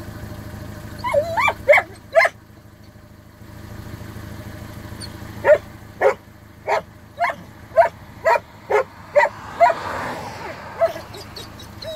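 Hunting dog barking in short, sharp barks: a few barks about a second in, then a run of about ten barks at roughly two a second from about five seconds in. A car drives past near the end.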